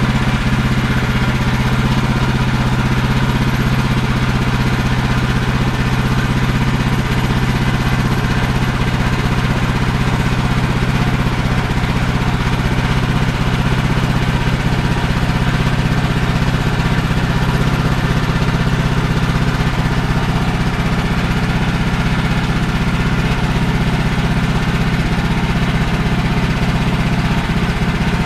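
Portable bandsaw mill's gas engine running steadily while the mill head is pushed slowly along a large fir log, sawing a board.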